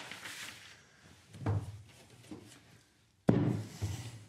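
Knocks on a workbench as a sieve is set down on paper: a dull thump about one and a half seconds in, then a sharp, loud knock a little after three seconds, with a smaller one just after.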